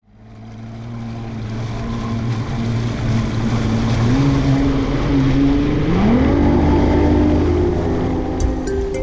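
Bass boat's outboard motor running under way, fading in at the start, with wind and water rushing. Its pitch rises about four seconds in and again about six seconds in as the revs climb.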